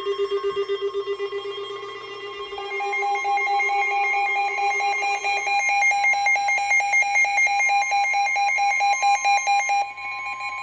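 Weather alert radios sounding their alarms for an incoming severe thunderstorm warning: a steady tone like the NOAA Weather Radio 1050 Hz warning alarm tone, with rapidly pulsing electronic beeps over it. A lower pulsing beep stops about halfway through. A higher pulsing beep starts a couple of seconds in and cuts off near the end.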